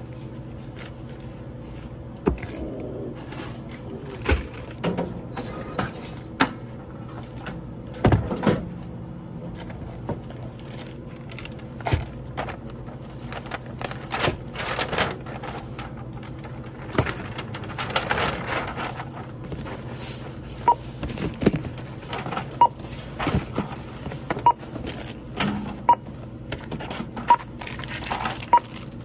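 Checkout-counter handling: paper shopping bags rustling and items knocking on the counter, then, in the second half, a run of short single-pitch beeps from the barcode scanner about once a second as items are scanned.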